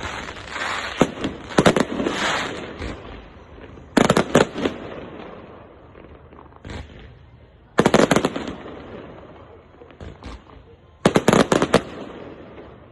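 Fireworks display: volleys of rapid sharp bangs from bursting aerial shells, coming in clusters every three to four seconds, with quieter noise between.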